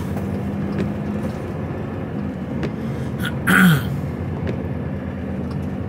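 Lorry engine running at low speed inside the cab, a steady hum as the truck creeps along. About three and a half seconds in comes a brief vocal sound with a falling pitch, like a throat clearing or grunt.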